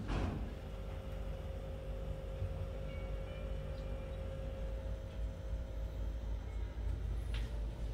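Steady low rumble with a faint constant hum, room noise with no clear single source. A short swish about a second before the end.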